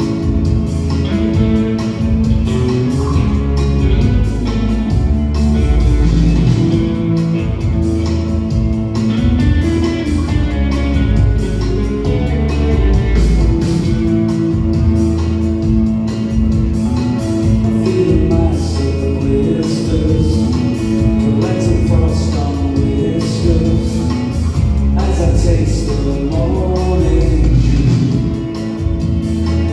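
Live rock band music: guitars over a steady beat, with singing.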